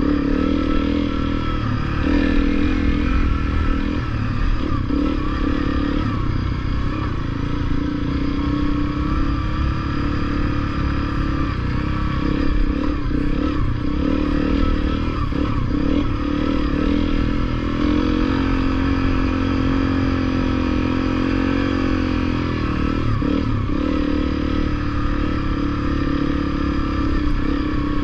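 Honda CRF250L's single-cylinder four-stroke engine running while being ridden over a rough dirt trail, its engine speed rising and falling with the throttle. It holds steadier at a higher pitch for a few seconds past the middle, then drops.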